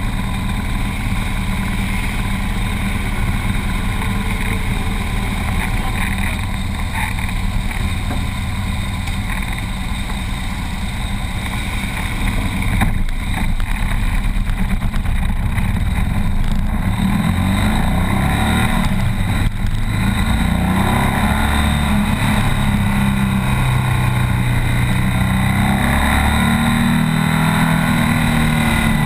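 BMW R 1200 S's boxer twin engine heard from an onboard mic, running steadily at low revs, then its pitch rising and falling from about halfway through as the bike pulls away at low speed.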